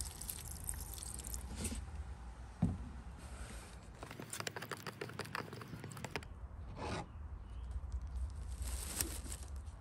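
Mineral spirits poured from a plastic jug into a plastic cup of black stain, then a wooden stir stick scraping and clicking against the plastic cup in a rapid run as the stain is mixed, with a few more short handling scrapes near the end.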